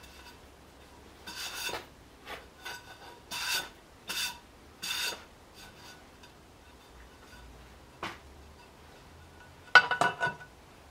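About six short scraping rubs in a loose rhythm, one more a few seconds later, then near the end a cluster of sharp metallic clanks with a brief ring as the cast-aluminium cover of a bike trainer is set onto its housing.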